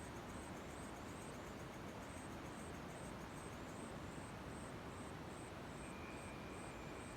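Crickets chirping in an even, high-pitched pulse, about two chirps a second, over a faint steady hiss of night ambience after rain. A second insect joins near the end with a continuous, lower trill.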